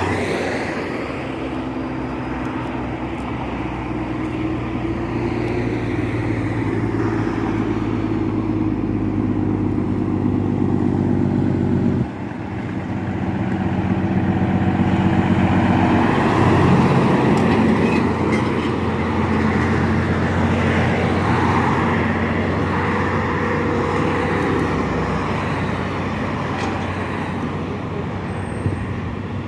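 Heavy diesel trucks running and passing on a highway, with a steady engine drone and road noise. The sound cuts off abruptly about twelve seconds in, then picks up again as a truck passes, loudest a few seconds later.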